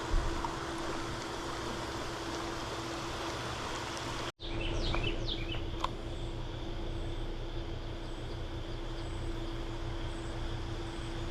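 Steady outdoor rushing noise with a low steady hum. After a brief break about four seconds in, a few quick falling bird chirps.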